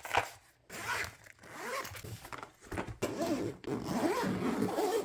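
Zipper on a battery organizer case being zipped, a ragged rasping whose pitch wavers as the pull speeds up and slows, in short runs and then one long, louder pull through the second half.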